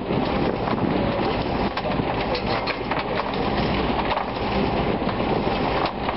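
Screw converger running steadily, its screw drawing a hopper load of waste french fries down and conveying them: a constant mechanical churning with many small clicks and knocks.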